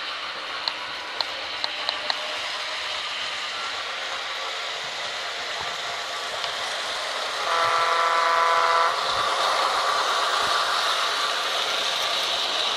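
Märklin H0 model of a DSB MY NOHAB diesel locomotive running with its train, giving a steady running hiss that grows as it comes near, with a handful of clicks in the first two seconds. About halfway through, the model's digital sound decoder sounds a diesel horn for about a second and a half.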